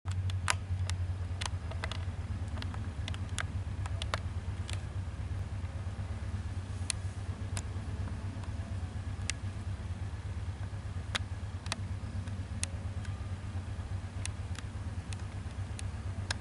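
Steady low rumble of a Boeing 777-300ER's GE90-115B jet engines heard from far below at cruising altitude, with scattered sharp clicks throughout.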